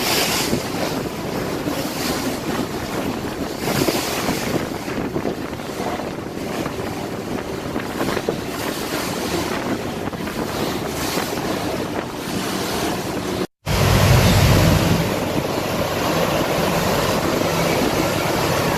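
Wind buffeting the microphone over the rush of water and the running noise of a moving tour boat. About 13 seconds in the sound cuts off abruptly and resumes with a heavier low rumble.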